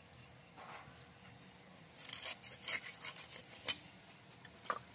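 Hilsa fish being cut on a boti, the curved floor-mounted blade: a quick run of scraping, crunching strokes about two seconds in, then two sharp clicks.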